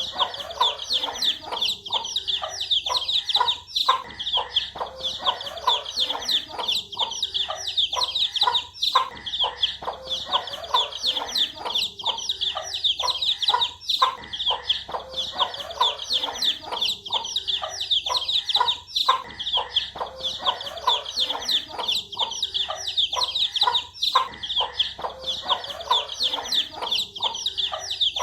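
A brood of baby chicks peeping without pause, many high chirps overlapping, with lower hen-like clucks returning about every five seconds.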